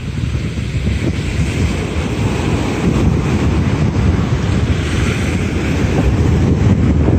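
Ocean surf breaking and washing up on a sandy beach, heavily buffeted by wind on the microphone, which gives a steady low rumble under the hiss of the waves.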